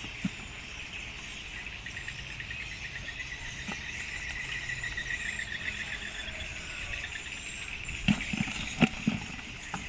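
Insects chirring steadily in a high, evenly pulsing buzz. Near the end, a few sharp taps and knocks as a fish and the cast net are handled on the wooden planks.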